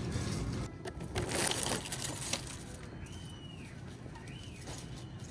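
Shrink-wrapped cases of plastic water bottles crinkling and rustling as they are handled and stacked, followed by a few short high squeaks that rise and fall in pitch.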